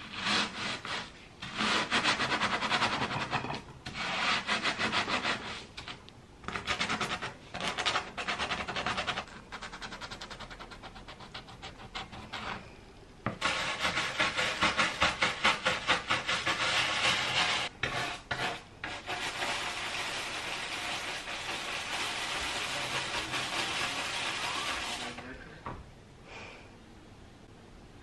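Half a lemon coated in coarse salt rubbed back and forth on a bamboo cutting board in short bursts of gritty scraping, to scour a stain out of the wood. About halfway through, a bristle scrub brush takes over, scrubbing the salt across the board in quick strokes that settle into steadier scrubbing and stop near the end.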